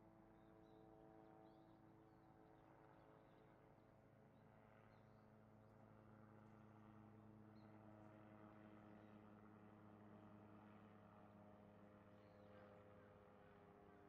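Near silence: a faint steady hum of several held low tones, with a few faint, short, high chirps scattered through it.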